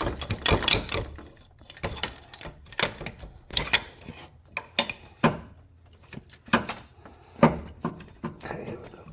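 Irregular metal clanks and clicks of a pry bar working against the power steering pump of an Infiniti G37's engine, levering the pump loose from the dowel pins that hold it tight; one knock about seven and a half seconds in is the loudest.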